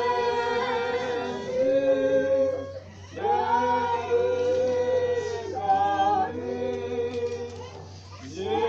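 Group of mourners singing a hymn together without accompaniment, in long held notes, phrase by phrase with short breaks between lines.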